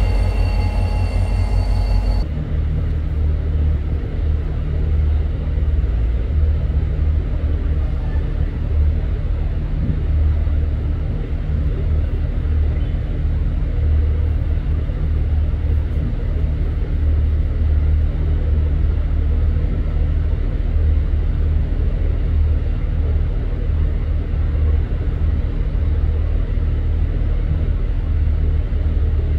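A train's rumble with high squealing tones, cut off abruptly about two seconds in. Then a steady low rumble of a vehicle or machinery.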